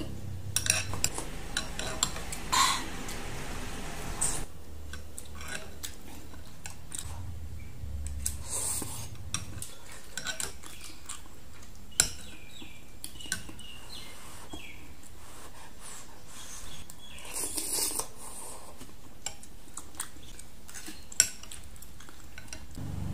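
Chopsticks and a metal spoon clinking against a glass bowl while stirring noodle soup: scattered light clinks, with two sharper ones about halfway through and near the end.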